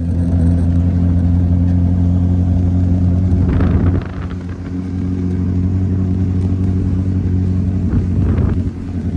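Sport motorcycle engine running at a steady pitch while riding. There is a short rush of noise and a brief drop in level about four seconds in, and again near the end.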